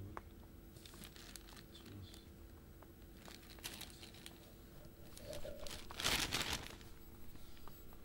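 Rabbit nibbling loose budgie seeds off a carpet, small scattered crunches and clicks, with a louder burst of clear plastic bag crinkling about six seconds in.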